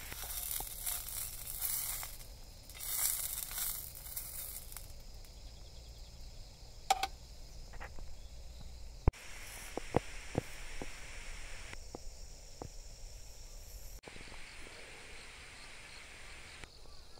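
A sausage sizzling in oil in a steel frying pan, loudest in the first few seconds and then quieter, with a few sharp clicks of metal tongs against the pan.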